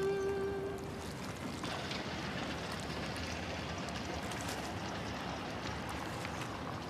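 Background music ends about a second in, leaving steady seaside harbour ambience: an even wash of water.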